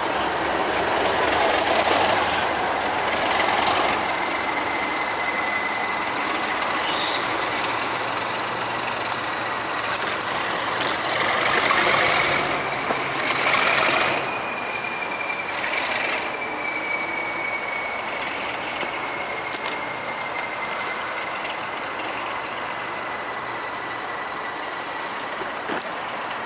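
Class 37 diesel locomotive 37521, running light with no train, pulling away with its English Electric V12 diesel engine running and a steady high whistle over it. The sound fades slowly as it moves off.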